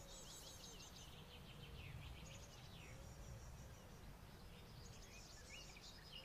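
Faint birdsong: several short trills and chirps, repeated throughout, over a low background hush.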